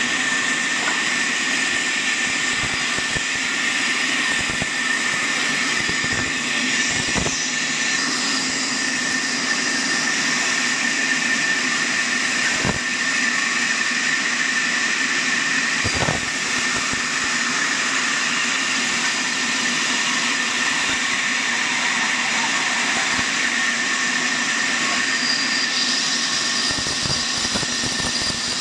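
Horizontal band sawmill cutting through a large log, running steadily with a constant high whine over a hiss of sawdust. Three brief dull knocks come at about 7, 13 and 16 seconds.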